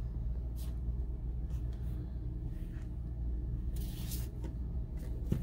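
Soft rustles of a leather wristlet being handled, a few times over, above a low steady rumble.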